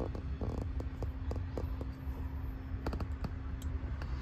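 A dozen or so light, scattered clicks and taps over a steady low rumble, with a faint hum running through most of it.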